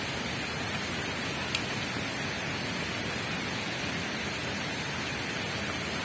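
Steady, even outdoor background hiss with a faint constant high-pitched tone in it, and one small click about a second and a half in.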